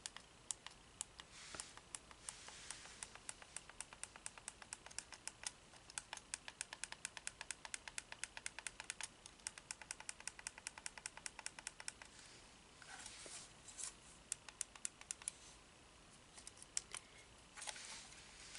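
Small plastic button on a clip-on LED phone light clicked over and over, about four to five clicks a second for several seconds, then a few faint rustles and scattered clicks near the end; the light's brightness and colour settings are being stepped through.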